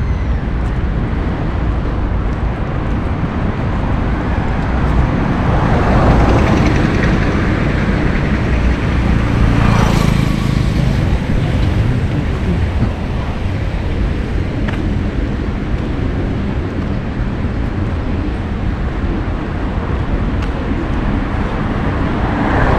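Street traffic noise: a steady rumble of road vehicles, with a vehicle passing close about ten seconds in.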